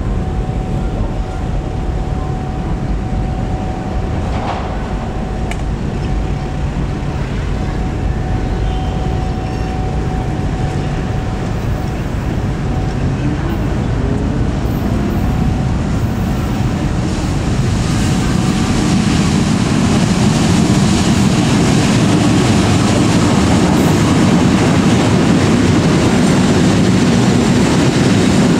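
KAI diesel-electric locomotive hauling a container freight train, its engine rumbling as it approaches. The rumble grows louder from about two-thirds of the way in, as the loaded container wagons roll past close by.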